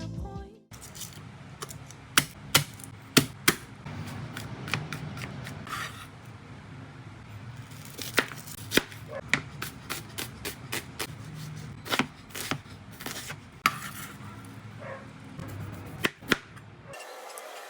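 Knife chopping on a cutting board: irregular sharp knocks, some much louder than others, with short pauses between runs of cuts.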